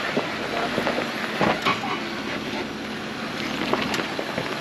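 Jeep Wrangler on 35-inch tyres crawling over loose rock: stones crunching, cracking and knocking under the tyres at irregular moments over a steady rough noise.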